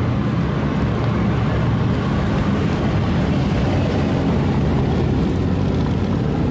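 A group of motorcycles and a motorcycle trike riding past in convoy, their engines running together in a steady low hum.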